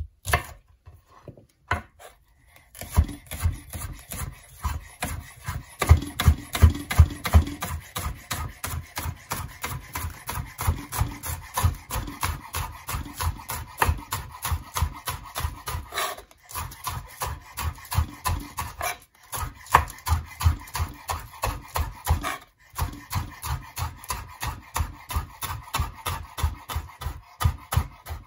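Chef's knife chopping green onions on a bamboo cutting board: a quick, steady run of knocks as the blade meets the wood, broken by a few short pauses. It starts with a few separate cuts through garlic before the fast chopping sets in.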